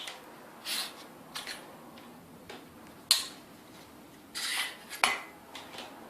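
Small metal bicycle parts being handled and fitted: brief scraping sounds and two sharp metallic clinks, about three seconds in and about five seconds in.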